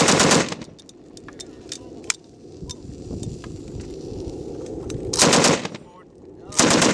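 M240B 7.62 mm machine gun firing short bursts of rapid shots: one at the start, another about five seconds in, and a third at the very end.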